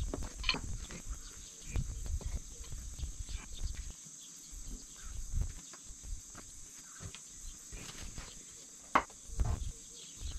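Outdoor insect drone, a steady high buzz like crickets, with scattered low thumps and knocks.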